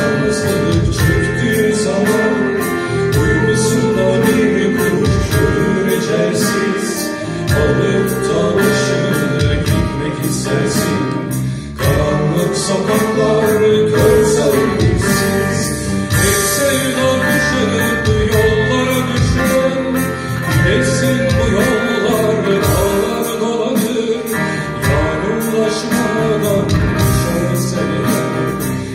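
Live acoustic Turkish folk ensemble playing, with strummed guitars and a male voice singing over them.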